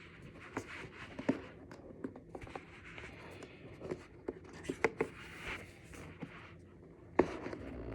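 Hands handling and opening a cardboard iPad Air retail box: scraping, rustling and a scatter of light taps and clicks, with a sharper knock about seven seconds in.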